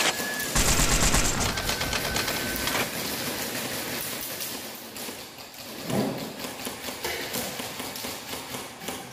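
Airsoft guns firing rapid automatic bursts, with clatter and ticking from the shots. The firing is heaviest about half a second in and thins out after about three seconds, with another sharp burst around six seconds in.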